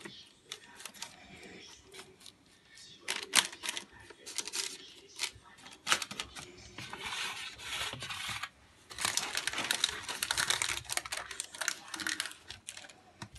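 A metal spoon pressing and scraping a sticky oat, butter and honey mixture flat in a parchment-lined metal baking tray: quick irregular clicks and taps of the spoon, with longer scraping and rustling stretches about seven seconds in and again from about nine to twelve seconds.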